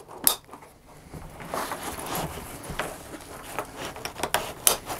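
Plastic buckles clicking and nylon webbing and fabric rustling as a bag is clipped onto a barrel's straps. A sharp click comes just after the start, then a few smaller clicks later among the rustling.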